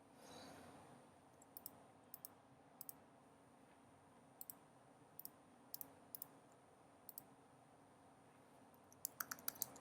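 Computer mouse clicking, scattered short clicks, many in quick pairs like double-clicks, with a fast run of several clicks near the end.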